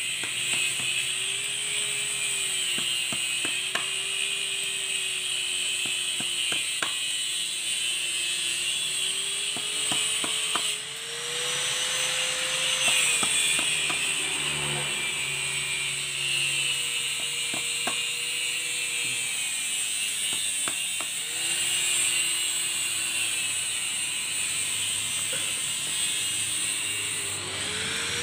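A steady, high rattling buzz with a lower tone that slowly wavers up and down, of unclear source. Scattered sharp clicks come from hand tools and copper winding wire being cut and worked out of an old water-pump motor's stator.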